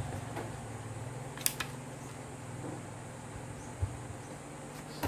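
Light clicks and taps of a smartphone being handled and turned over on a silicone mat while its clear protective film is peeled off: a sharp click about one and a half seconds in and a dull tap near the end, over a steady low hum.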